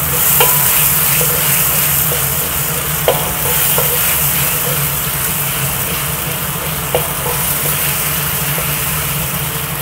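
Blended chilli paste and sliced shallots sizzling steadily in hot oil in a stainless steel wok, stirred and scraped with a wooden spatula. The spatula knocks briefly against the wok a few times.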